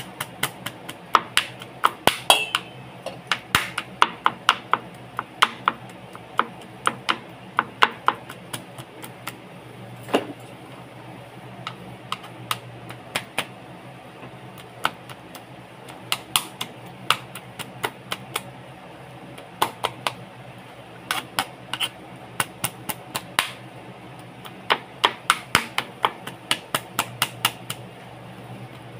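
Kitchen knife chopping raw chicken on a plastic cutting board to mince it: runs of sharp taps about three or four a second, broken by short pauses.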